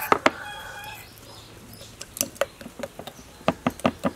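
A metal spoon stirring sauce in a small glass bowl, clinking against the glass in irregular sharp clinks: two at the start, then a run of them from about two seconds in.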